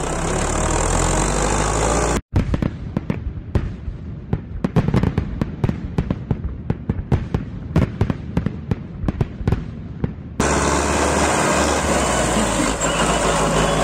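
A fireworks sound effect: rapid, irregular bangs and crackles of exploding fireworks. It cuts in sharply about two seconds in and cuts off sharply about eight seconds later. Before and after it, a steady tractor engine is running.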